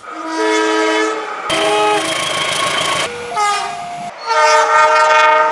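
Train horns sounding in four long blasts, each a chord of a different pitch that cuts off sharply into the next. They are the multi-tone air horns that Indonesian train drivers sound as the long warning signal (semboyan 35).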